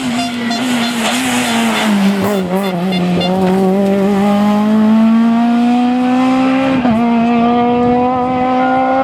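Rally car engine at high revs: the engine note falls as the car slows, with tyre noise, then climbs steadily under full acceleration. It snaps down for an upshift at about seven seconds and again at the very end.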